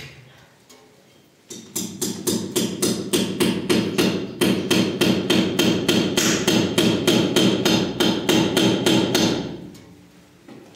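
Hammer driving a nail with quick, even blows, about four a second, over a steady ringing note. The hammering starts about a second and a half in and stops about a second before the end.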